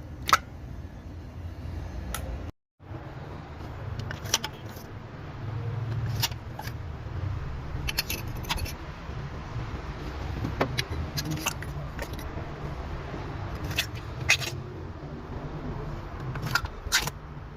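Car engine running unevenly with a low, uneven rumble, the sign of the misfire it is suffering, with scattered sharp clicks and jingling like keys. The sound drops out for a moment about two and a half seconds in.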